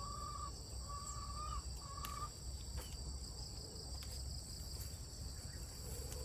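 A rooster crowing once in the first two seconds, a call broken into three short level notes, over a steady high-pitched chirring of crickets or other insects.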